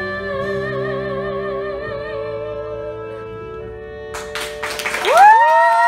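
The final sustained chord of a musical-theatre ballad, one line wavering in vibrato, fading away; about four seconds in, the audience bursts into applause, with whooping cheers rising over it near the end.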